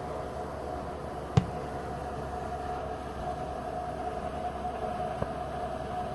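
Steady outdoor background hiss and hum, with distant road traffic, broken by one sharp thump about a second and a half in and a faint click near the end.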